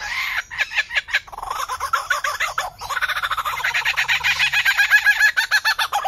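Lyrebird singing: fast runs of many short repeated notes a second, with a brief pause about three seconds in.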